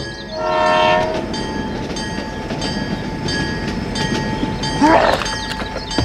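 Train horn sounding once for about a second, then a train rolling along the track with a steady rumble and a regular clatter of wheels.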